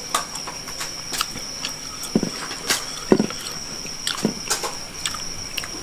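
Fingers picking through food on a plate: scattered light clicks and taps and a few short squeaks, over a steady high-pitched whine.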